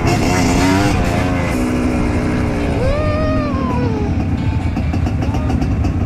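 Trail motorcycle engine running while riding, its pitch wavering up and down with the throttle.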